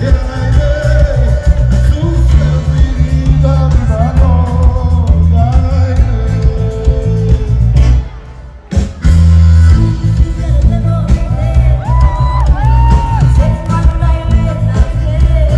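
Live band playing on stage, keyboard and guitars over a heavy pulsing bass, with a singer's voice carrying the melody. About eight seconds in the music drops away for about a second, then comes back in full.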